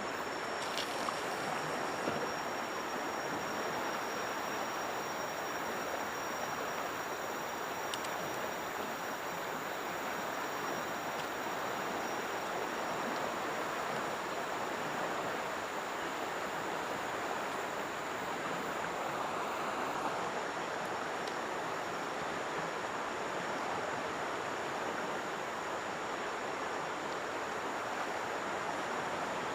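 Steady rushing of flowing river water, with a faint high steady whine and a few light clicks.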